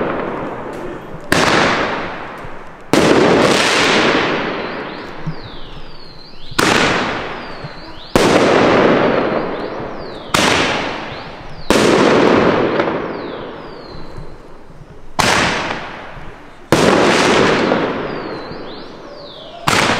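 Firework mortars going off, about nine loud bangs coming roughly in pairs a second and a half apart, each ringing out and fading over a second or more.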